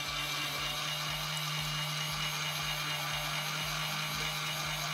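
Small electric motor of a toy mini washing machine running with a steady hum and a regular low throb, churning water and shampoo.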